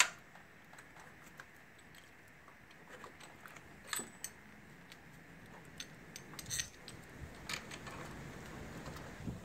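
Light metallic clicks and clinks of the alternator and its mounting hardware being handled and lined up in the bracket: one sharp click at the start, then scattered clinks, a few louder ones around four, six and a half and seven and a half seconds in.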